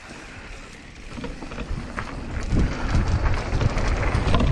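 Wind rushing over the microphone and mountain-bike tyres rolling on a dirt trail, growing louder from about a second in as the bike picks up speed downhill.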